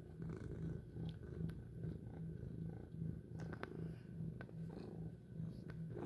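Domestic cat purring steadily and softly, the low purr pulsing evenly with her breathing.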